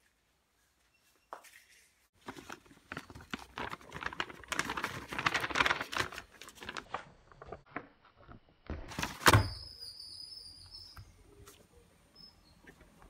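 Hands handling a sheet of paper and a cardboard box on a tabletop: several seconds of dense rustling and scraping, then a single sharp thump about nine seconds in, followed by faint handling sounds.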